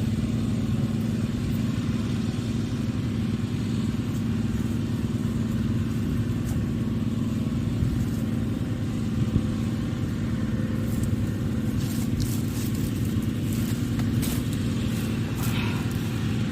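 A motor running steadily: a constant-pitch drone over a low rumble, with a few faint clicks near the end.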